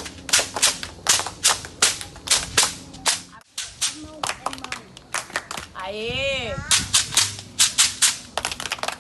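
A group of children clapping their hands together in a quick beat, about four claps a second, with a brief break about three and a half seconds in. Around six seconds in a voice sings out one note that rises and falls.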